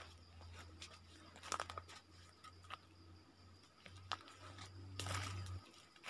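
Faint, scattered crackles and rustles like dry leaf litter, with a longer rustle about five seconds in, over a steady low hum that stops shortly after.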